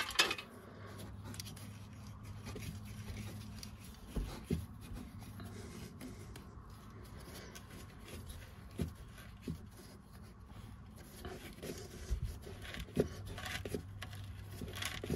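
Faint rubbing and scraping of a hand easing rubber sleeving back over a steel brake pipe, slick with WD-40, with a few light knocks, over a steady low hum. A short hiss sounds at the very start.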